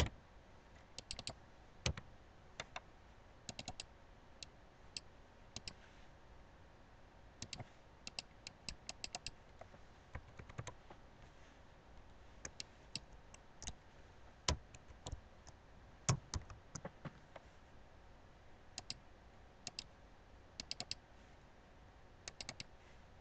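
Faint, irregular clicks of a computer mouse and keyboard, some single and some in quick runs of three to five, over a low hiss.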